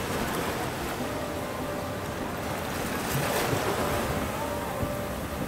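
Small waves breaking and washing up over a sandy beach, with wind buffeting the microphone.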